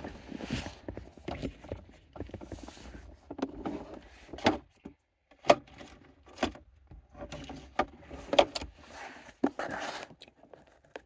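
Someone rummaging for a tool: irregular clicks, knocks and rustling, with a few sharp clicks scattered through.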